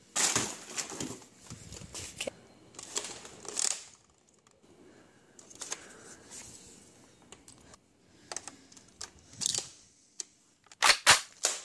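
Hard plastic clicking, clattering and rustling as Nerf foam-dart blasters are picked up and handled, with a quick run of loud sharp clicks near the end.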